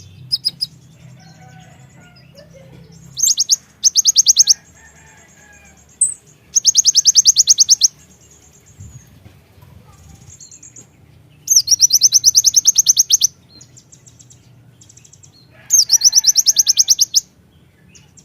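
Kolibri ninja sunbird singing: five bursts of rapid, high trilled notes, each about a second long, with softer chirps in between.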